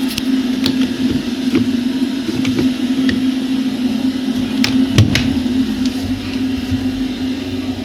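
Candy 7 kg washing machine running: a steady motor hum with scattered light clicks and knocks, one louder knock about five seconds in.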